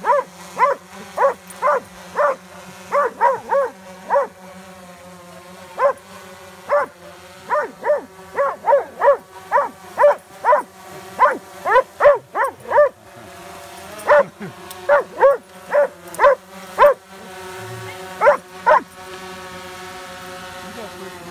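Vizsla barking over and over at a hovering quadcopter drone, in quick runs of short barks with a few short pauses, over the drone's steady rotor hum.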